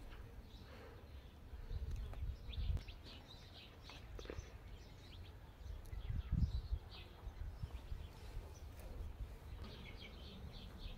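Faint, scattered chirps of small birds, with a few low rumbles on the microphone, the strongest about two and six seconds in.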